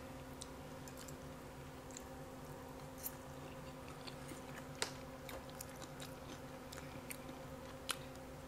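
Quiet close-miked eating: chewing and small clicks of a fork on a glass plate while picking through deep-fried catfish, with three sharper clicks along the way. A faint steady hum lies underneath.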